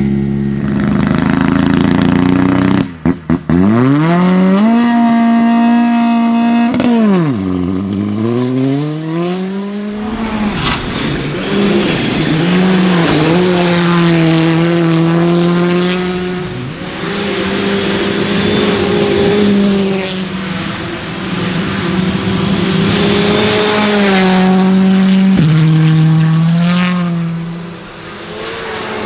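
Hyundai i20 R5 rally car's turbocharged four-cylinder engine driven flat out. The engine note cuts out briefly a few times about three seconds in, then climbs steeply, falls, and climbs again. It then holds at high revs, rising and dipping, with a drop in level near the end.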